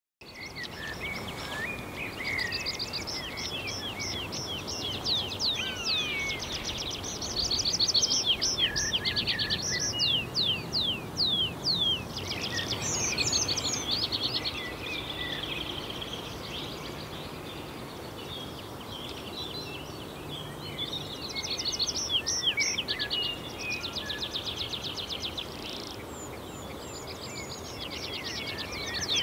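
Several songbirds singing over a steady outdoor hiss: rapid high trills and down-slurred whistles, busiest in the first half and again near the end.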